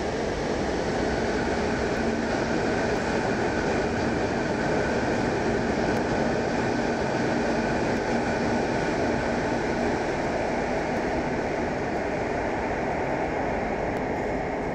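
Electric passenger train running along the platform of an enclosed underground station: a steady rumble of wheels on rail with a constant electric motor whine on top.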